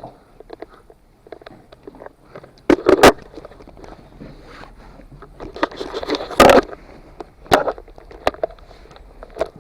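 Irregular scuffs and knocks, with loud thumps about three seconds and six and a half seconds in.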